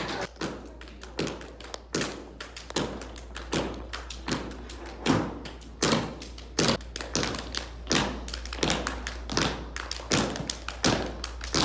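Dance shoes tapping and stamping on a wooden studio floor: a quick, irregular run of sharp taps and thuds, about three a second.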